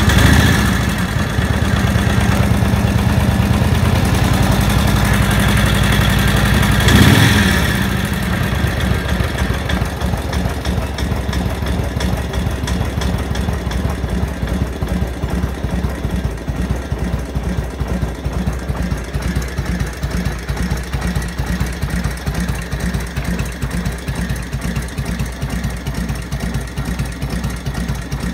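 1946 Harley-Davidson WL's 45-cubic-inch flathead V-twin running after a kick start. It is revved briefly twice, right at the start and again about seven seconds in, then settles to a steady idle with an even pulsing beat.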